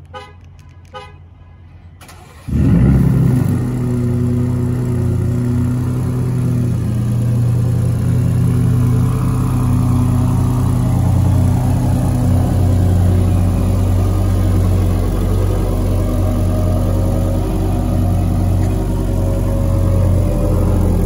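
Two 2021 Ford F-150 Raptors' 3.5-litre twin-turbo V6 engines cold-started together: after two short chirps, both engines fire about two and a half seconds in with a loud flare, then settle into a steady cold idle through the dual exhausts.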